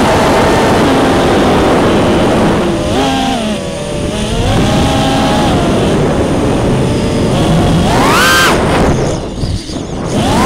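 Brushless motors and propellers of a 5-inch FPV quadcopter (T-Motor F40 III 2306 2750KV motors) whining through the onboard camera's microphone, the pitch rising and falling with the throttle. It dips about three and a half seconds in, climbs sharply about eight seconds in, drops to a brief quieter lull, then surges again at the end.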